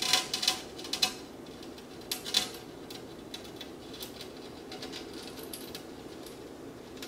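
A hand-held blade scraping along the glass corner seam of an aquarium, cutting through the silicone in short strokes. The strokes are loudest in the first two and a half seconds, then fainter.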